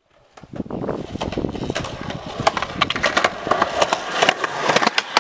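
Skateboard wheels rolling over a concrete path toward the camera, a steady rumble, with sharp clicks and clacks that come more often from about halfway.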